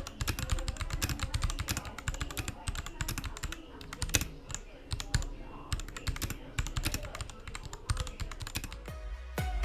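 Royal Kludge RK61 mechanical keyboard being typed on rapidly, a dense run of key clicks and clacks.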